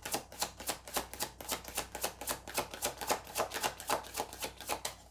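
A tarot deck being shuffled by hand, the cards clicking in a quick, even run of about six a second that stops just before the end.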